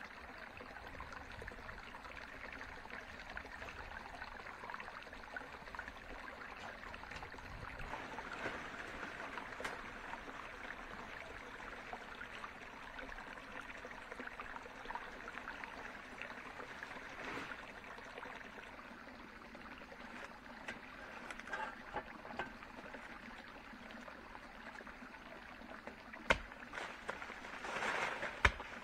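Steady hiss of water, with two sharp knocks near the end.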